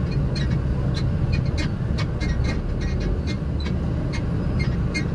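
Container lorry cab interior while driving slowly: a steady low rumble of the engine and road, with frequent irregular short clicks and rattles.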